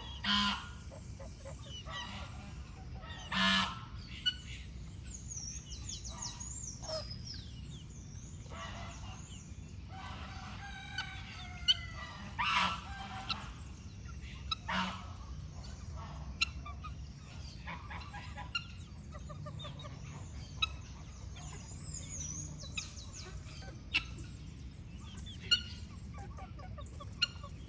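Hens clucking in a farmyard, with a few loud short fowl calls: two near the start and two more around the middle. Small birds twitter high above, and sharp clicks come every few seconds.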